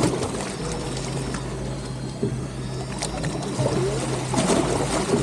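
Fishing boat on the open ocean: a steady low engine hum with water washing against the hull.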